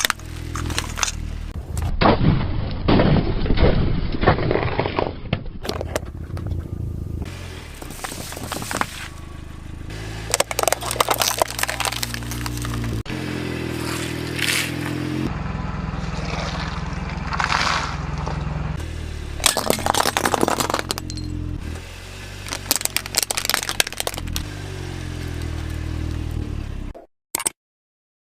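Objects crushed under a car's tyre, with repeated cracking and crunching sounds across several short clips over background music.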